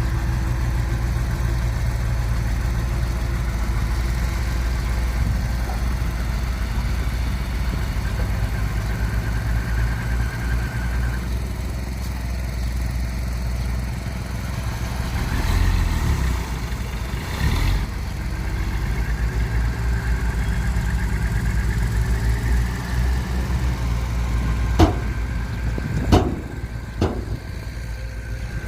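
Heavy diesel engine of earth-moving machinery running steadily, surging louder a couple of times around the middle, with three sharp knocks near the end.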